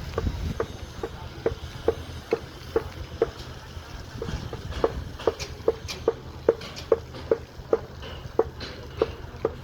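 A regular run of short knocks, a little over two a second, with a short break midway, over a low steady rumble.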